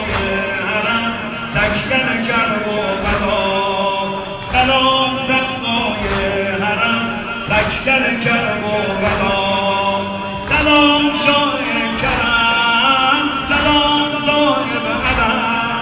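Sineh-zani: male voices chanting a Shia mourning lament (noha) over rhythmic chest-beating by a crowd of men, one sharp slap about every three-quarters of a second.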